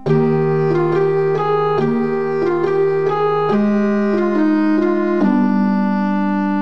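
Background music on an electronic keyboard or organ: held chords that change every second or two, under a melody that moves in steps.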